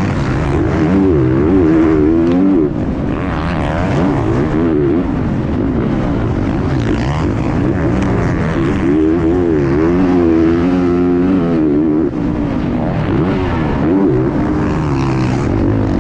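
Motocross bike engine heard close up from onboard, revving hard and easing off again and again with the throttle and gear changes, its pitch rising and falling every second or two.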